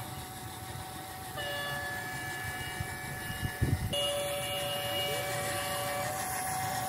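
Toy model train running along plastic track: a steady hum of several held tones over a low rattling rumble, shifting abruptly twice.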